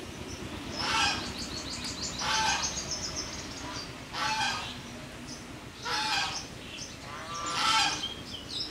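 Geese honking, a series of short, loud calls about one every one and a half to two seconds.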